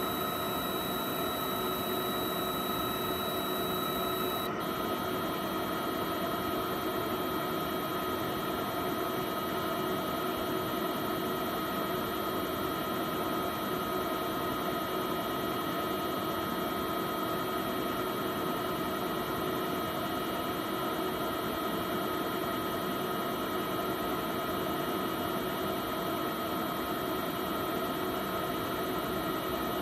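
Steady machine hum with several held whining tones from a PATHFAST immunoassay analyzer at work, drawing liquid up and down through its magnetic pipette tips. The highest tones shift abruptly about four and a half seconds in.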